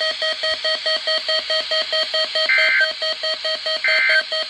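Weather radio receiver's alert alarm beeping rapidly, about six beeps a second, with a louder, higher two-tone chirp twice. It keeps sounding after the test message ends because it has not been silenced.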